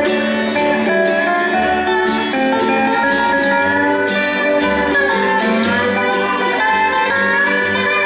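Resonator guitar (Dobro) played lap-style with a steel bar, picked notes sliding up and down in pitch, with a low bass line pulsing steadily under it in a bluegrass tune.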